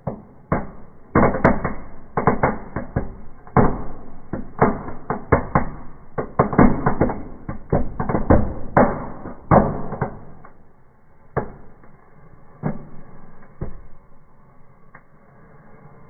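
Small fireplace fireworks going off inside a wood stove: a rapid, irregular string of sharp bangs and crackles, densest over the first ten seconds, then thinning to a few isolated pops.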